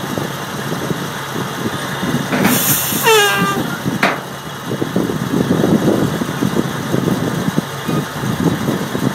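An engine running steadily at the well site, with a sudden hiss about two and a half seconds in that ends in a short falling squeal, then a sharp click a second later and irregular low knocking after it.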